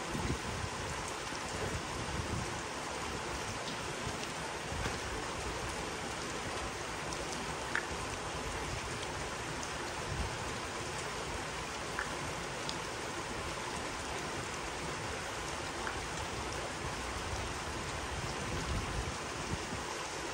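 Steady rain falling on grass and creek water, with a few scattered short ticks of drops close by.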